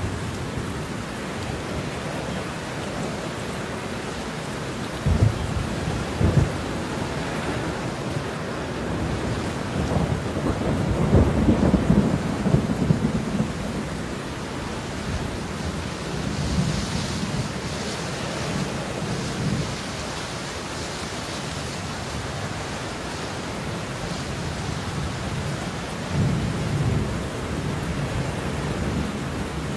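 Thunderstorm: steady rain with thunder rolling several times. There are two sharp claps about five and six seconds in, a long rumble from about ten to thirteen seconds that is the loudest, and weaker rumbles later on.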